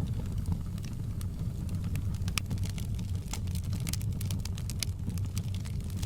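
Wood fire crackling: irregular sharp pops and snaps over a steady low rumble, with one louder pop about two and a half seconds in.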